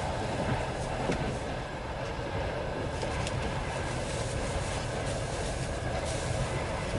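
Passenger coach running at speed, heard from inside the carriage: a steady rumble of wheels on the rails, with a few faint clicks.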